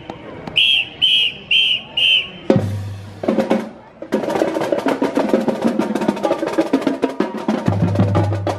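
Four short, high whistle blasts, then a marching band's drumline starts up: a few deep bass-drum hits, then snare drums playing a fast cadence with rolls over the bass drums.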